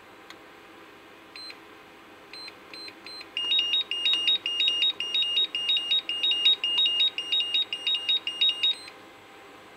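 HobbyKing ECO 6-10 balance charger's beeper: a few separate short beeps, then about five seconds of rapid, high-pitched two-tone beeping, four to five beeps a second, that stops suddenly. The rapid beeping is the charger's fault alarm, with its display reading 'BREAK DOWN' while a cell reads 0.00 V.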